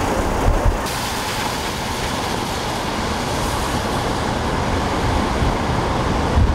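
Steady city street noise, a rumble of traffic with no distinct event, with a couple of low thumps about half a second in and again near the end.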